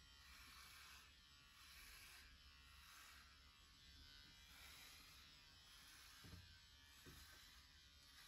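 Electric pet clippers running faintly as they shave a golden retriever's coat, the sound swelling about once a second with the strokes through the fur.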